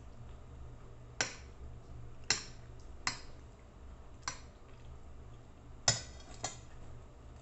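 Metal utensils clinking against a plate as food is served with tongs: six sharp clinks spread out, the loudest about two-thirds of the way through, over a low steady hum.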